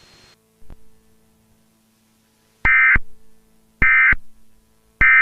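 Emergency Alert System end-of-message data tones: three short, identical bursts of shrill digital screeching, a little over a second apart. They mark the end of the alert.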